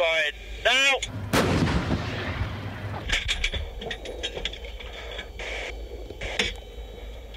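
Challenger 1 tank's 120 mm main gun firing once, heard inside the turret: a single heavy blast about a second and a half in, with a long fading rumble. Scattered clicks and knocks follow.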